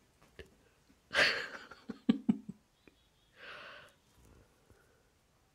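A cat pouncing about on a bed: a short burst of bedding rustling, then two sharp soft thumps. A short breathy exhale follows a little later.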